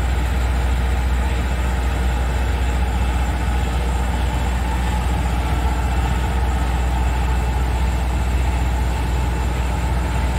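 Diesel engine of a Kubota DC105X tracked rice combine harvester running with a steady low drone as the machine crawls forward on its tracks.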